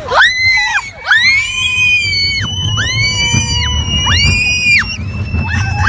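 Roller-coaster riders giving a run of long, high, put-on screams one after another, each rising, holding and falling. Under them runs the low rumble of the moving coaster train.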